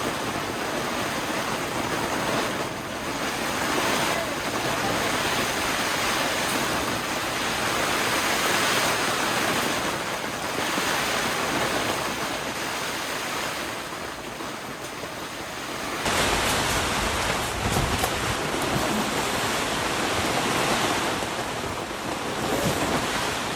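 Heavy rain pouring down in strong, gusting wind. About two-thirds of the way through, wind starts buffeting the microphone with a low rumble.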